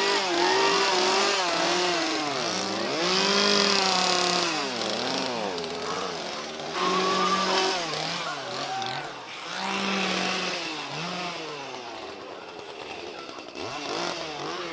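Chainsaw engine revving up and down again and again.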